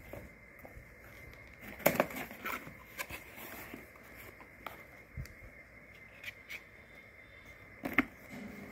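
Cardboard packaging handled by hand: box flaps folded back and a boxed smartwatch slid out, giving scattered clicks, knocks and rustles, the sharpest about two seconds in and near the end.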